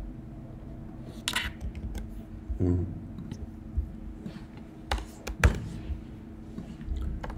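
Scattered computer keyboard clicks, about half a dozen sharp keystrokes spread over several seconds, over a faint steady hum.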